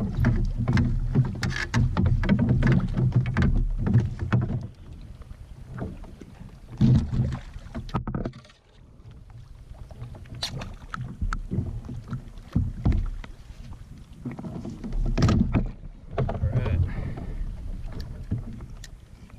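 Wind rumbling on the microphone and water slapping a Hobie Pro Angler fishing kayak on choppy water, with frequent sharp knocks and clicks. It goes quieter for a couple of seconds about eight seconds in.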